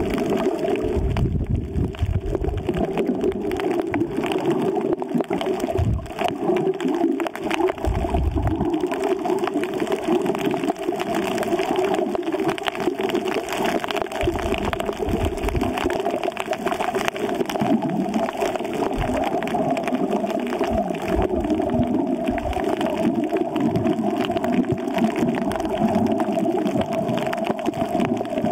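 Underwater sound picked up through an action camera's waterproof housing on a snorkel swim: a steady muffled water rush with fine crackle and irregular low thumps.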